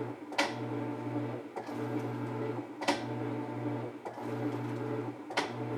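Whirlpool vertical modular washer agitating on its heavy agitation cycle: the motor and transmission hum in strokes that stop and reverse about every 1.3 seconds, with a click at some of the reversals.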